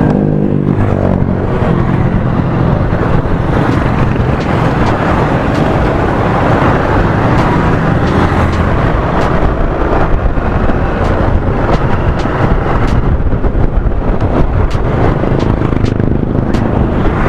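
Wind rushing over an action camera's external microphone on a moving motorcycle, with the motorcycle's engine running underneath; a steady, loud rumble.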